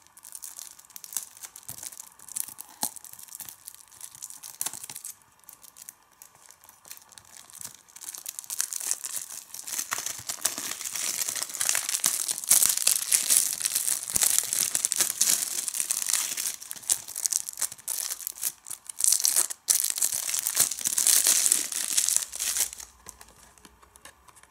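Plastic shrink-wrap being picked at and peeled off a Blu-ray case: light scratching and clicks at first, then steady crinkling and tearing of the film from about eight seconds in, dying away near the end.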